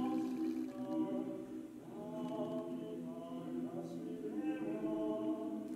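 Background music: a slow song with long, held sung notes that glide gently between pitches.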